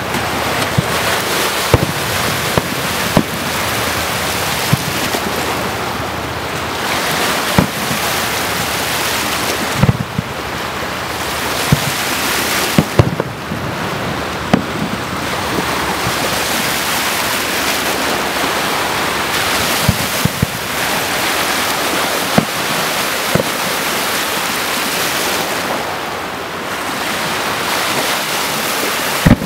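Fireworks shells bursting: irregular sharp bangs, some single and some in quick clusters, over a steady rushing of wind on the microphone.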